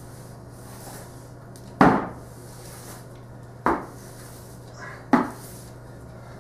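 Three sharp wooden knocks on a hardwood floor, a second and a half to two seconds apart, as a crutch and broom are planted and pushed during one-legged sweeping.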